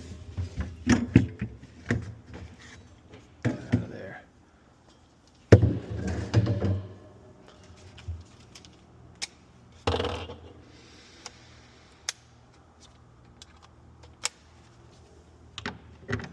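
Irregular clunks, knocks and rattles of refrigerator parts being handled and worked loose by hand, with quiet gaps between.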